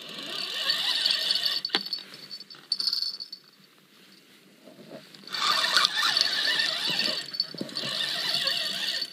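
Fishing reel being cranked against a hooked blue catfish, a mechanical whir in two spells with a pause of about two seconds in the middle. There is a sharp click about two seconds in.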